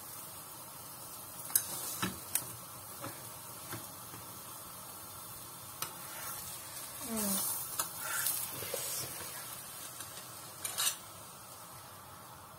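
Raw-mince paratha sizzling on a hot tawa, with a few sharp clicks and scrapes of a utensil against the pan. The sizzling swells for a couple of seconds in the middle.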